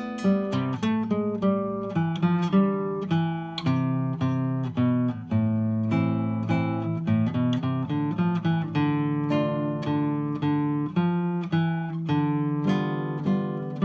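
Solo classical guitar playing a melody of plucked notes over a bass line, with chords in places.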